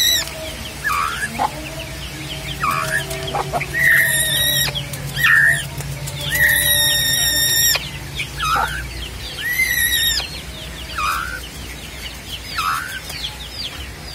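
Hungry young spotted doves (derkuku) squealing as they beg for hand-feeding. The calls are loud and high and repeat every second or so: some are short and dip in pitch, a few are drawn out for about a second. Faint rapid chirping runs behind them.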